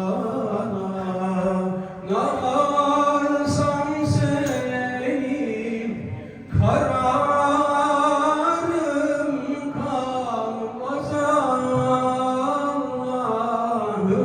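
A Sufi hymn (ilahi) sung in a chanting style, in long held phrases with brief pauses about two seconds and about six seconds in.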